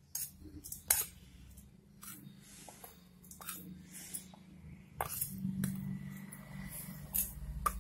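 A spoon clinking and tapping lightly against a bowl, several scattered times, as spice paste is added to a mixture of ground lentils, over a faint low hum.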